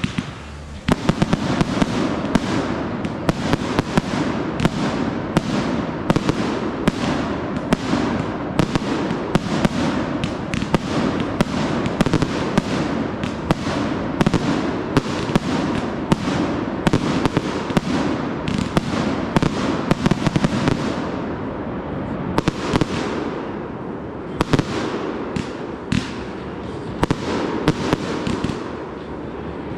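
Consumer fireworks going off in a dense barrage: many sharp bangs, several a second, overlapping on a continuous rumble, thinning slightly past the middle before picking up again.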